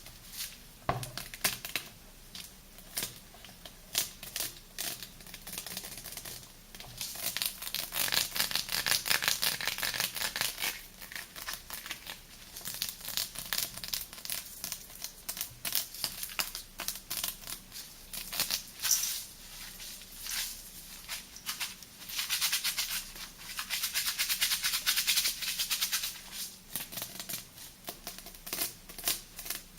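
Close-miked crackling, clicking and scratching of sea salt and thick soap lather being worked into a paste. Irregular clicks run throughout, with two longer stretches of dense crackling, one about a third of the way in and one past two-thirds.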